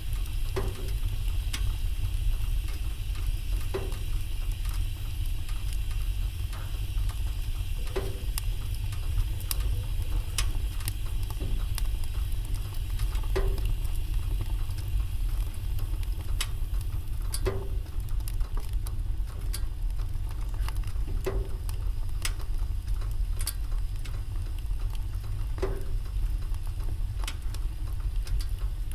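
Wood fire crackling in an open fireplace: irregular sharp pops and snaps over a steady low rumble and hiss.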